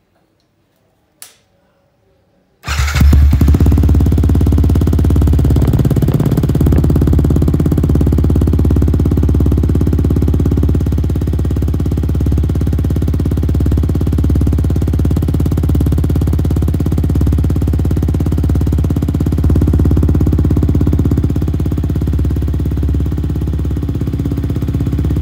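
Yamaha MT-15's single-cylinder engine starting about two and a half seconds in and idling steadily through an aftermarket Akrapovic exhaust fitted with a dB killer, its note bassy and somewhat subdued.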